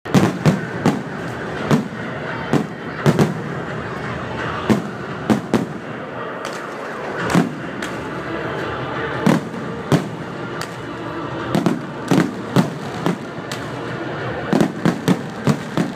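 Aerial firework shells bursting overhead, sharp bangs one after another at irregular intervals over a steady background rumble. The bangs come thickest in the last few seconds.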